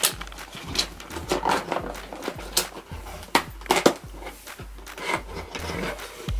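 A GoPro Hero5 Black retail box being handled and pulled open: cardboard and plastic packaging scraping and clicking, with about ten irregular knocks and snaps as the inner box slides out of its sleeve.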